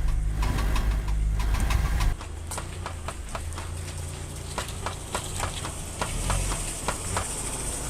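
Car engine running, then from about two seconds in a quieter stretch with a string of sharp clicks, a few per second. The clicking comes from a worn CV joint, the noise it usually makes when the steering wheel is turned.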